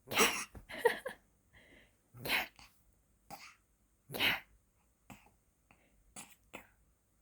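Six-month-old baby and mother trading short, breathy, cough-like 'keh' laughs, about one a second, some loud and some faint: the baby imitating the mother's laugh and laughing aloud.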